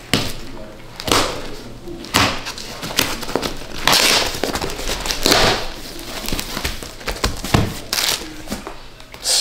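Taped parcel being cut and torn open with a knife: packing tape and packaging crinkling and tearing in about eight irregular bursts.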